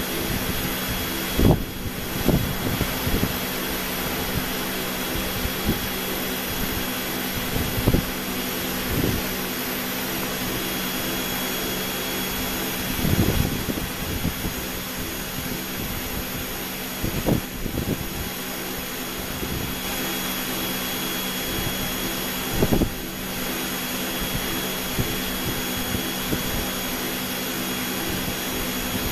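Steady running hum and airy rush of a cone calorimeter's exhaust and gas-analysis equipment, with a few short low thumps scattered through it.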